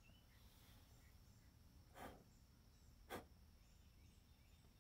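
Near silence, broken by two brief clicks a little over a second apart, the second sharper and louder.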